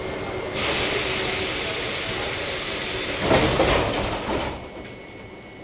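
Metro car's pneumatic doors closing: a loud hiss of air that starts about half a second in and lasts about four seconds, with a heavier thump about three and a half seconds in as the doors shut, then the hiss cuts off.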